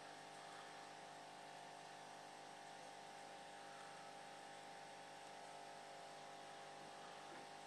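Faint steady electric hum of an aquarium air pump running, with a low hiss behind it.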